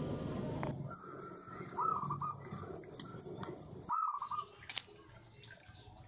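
A bird calling in two short runs of quick repeated notes, about two seconds in and again about four seconds in, with scattered short high chirps from small birds around them.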